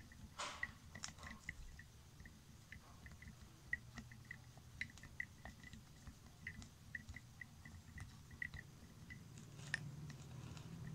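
Plastic spoon stirring soap in a drinking glass of liquid: a quiet run of short, irregular clicks as the spoon taps the glass, with a few louder knocks.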